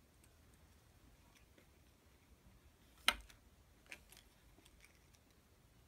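Quiet handling of a small plush charm being set down on a tabletop: one sharp click about three seconds in, a softer one just under a second later, and a few faint ticks.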